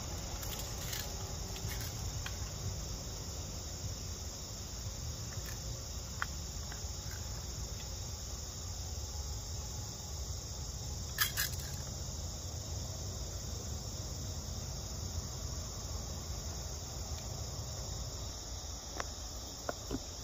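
Steady chorus of insects with crickets, a continuous high shrill, over a low rumble. A few brief clicks from handling a muzzleloading shotgun stand out, the loudest about halfway through.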